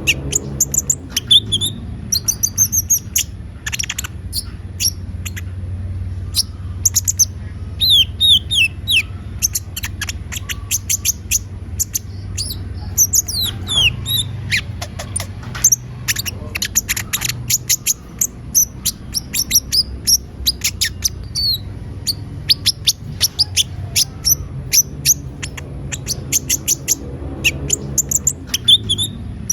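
A konin (kolibri ninja sunbird) singing continuously in rapid, high, sharp chirps and short trills, the gacor song used as a lure to set caged sunbirds singing. A steady low hum runs underneath.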